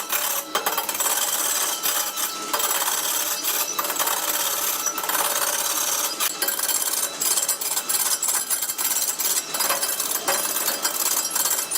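Power tool working wood: a steady rasping, scraping noise with many small clicks and knocks.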